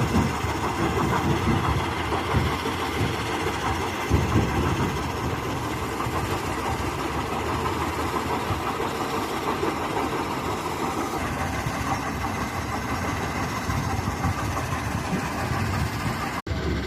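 Heavy machinery at a stone quarry and crusher site running steadily, with a continuous low engine rumble.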